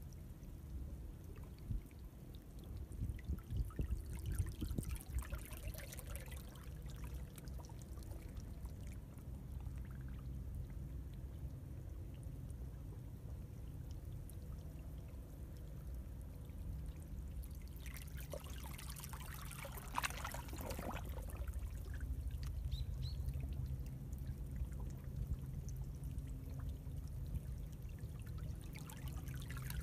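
Seawater washing and trickling through a narrow rocky tidal channel over a steady low rumble, with louder splashing surges a few seconds in and again about two-thirds of the way through.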